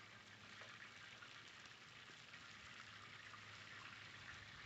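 Faint sizzling of food frying in a pan over a wood fire: a soft steady hiss with light crackling.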